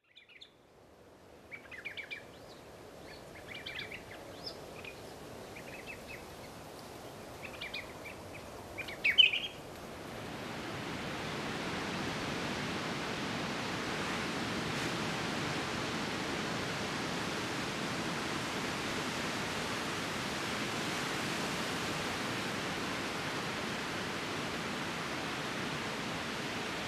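Birds chirping in short calls over a faint hiss for about the first ten seconds, then a steady wash of ocean surf breaking on a beach.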